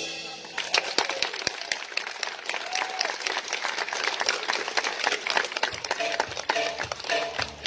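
Audience applauding, many hands clapping, starting about half a second in as the music dies away.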